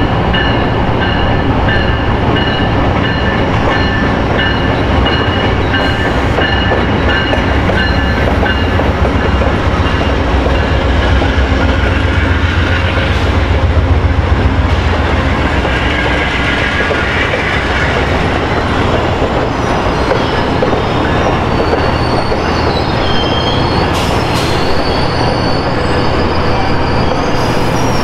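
Amtrak Southwest Chief passenger train with bi-level Superliner cars rolling slowly along the station track. A steady rumble of wheels on rail peaks about halfway through, with thin, high wheel squeals early on and again near the end.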